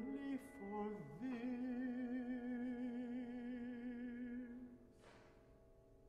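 Classical baritone singing with piano accompaniment: a short phrase, then one long held note with wide vibrato that ends about four and a half seconds in, leaving the piano chord ringing on softly and fading.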